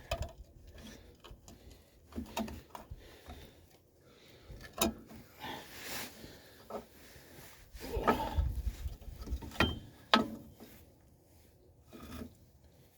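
Hand brake tool clicking, scraping and knocking against drum brake hardware in scattered short bursts, with a few louder clusters near the middle and later on, as it works on a part that is rusted in place.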